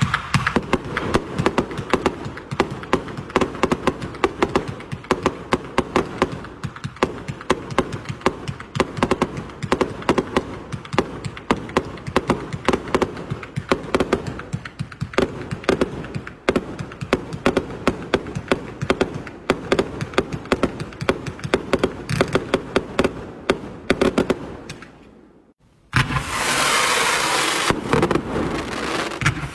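Multi-shot consumer fireworks cake firing a rapid barrage of launch thumps and bursting pops, which thins out and dies away after about 25 seconds. After a brief gap, the next cake starts with a denser, hissing crackle of shots.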